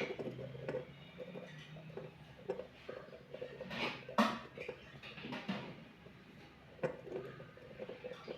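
Beyblade spinning top spinning and clattering, with a run of light clicks and knocks and a few sharper hits. A low steady hum sounds in the first couple of seconds, the motor-like sound of its rotation.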